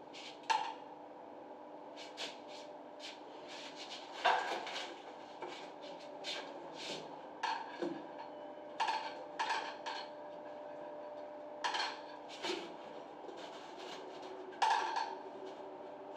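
Small hard clinks, clicks and taps of a screwdriver and metal fittings against a concealed shower mixer valve and its face plate as it is taken apart, irregular, with a louder knock about four seconds in and another near the end.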